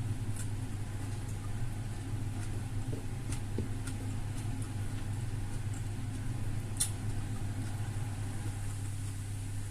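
A steady low electrical-sounding hum, with a few faint clicks of eating, the clearest about three and a half and seven seconds in.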